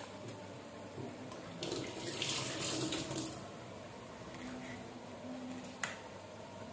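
A kitchen tap runs briefly into a stainless-steel sink for about two seconds, the loudest sound here. Near the end a knife knocks once on a plastic cutting board while chilies are being chopped.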